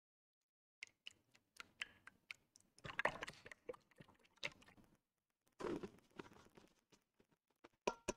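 Silicone spatula stirring a runny egg-white and condensed-milk mixture in a stainless steel bowl, scraping and clicking against the metal; loudest about three seconds in and again around six seconds.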